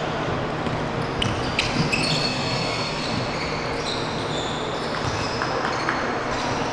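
Basketball sneakers squeaking in short high chirps on a hardwood court during full-court play, with a few sharp ball bounces about a second and a half in.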